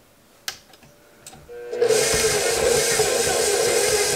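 A couple of clicks, then a bowl-lift stand mixer's motor starts about two seconds in and runs steadily on medium-low speed, mixing crumbly shortbread dough of flour, powdered sugar and cold butter.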